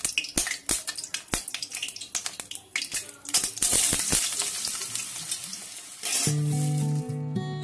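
Potato sticks going into hot oil in a metal kadai: a run of sharp clicks and taps, then a loud sizzle from about three and a half seconds in that slowly dies down. Acoustic guitar music comes in about six seconds in.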